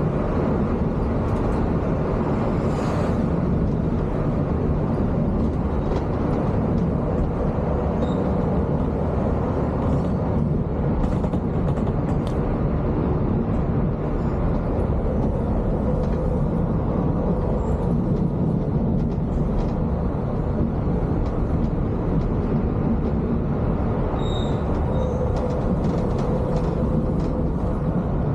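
Cabin sound of a Volvo B11R coach under way: a steady rumble of its rear-mounted six-cylinder diesel engine and tyre noise, with faint light rattles now and then.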